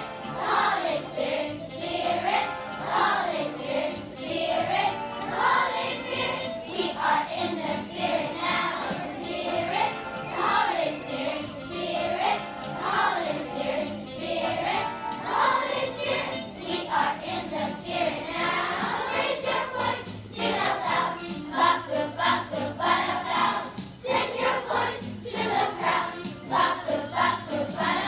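Elementary-school children's choir singing together, accompanied by music with a steady beat.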